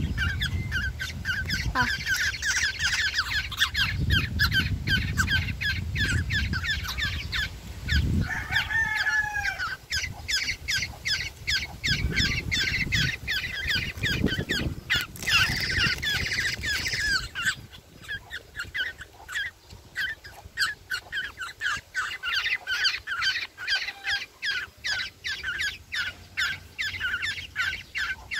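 Young black-naped orioles begging: a rapid, unbroken run of short, high calls, several a second.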